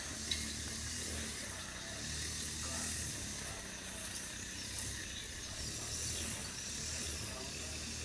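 Steady outdoor background noise: a high hiss with a low hum underneath, and one short click just after the start. No clear eagle call stands out.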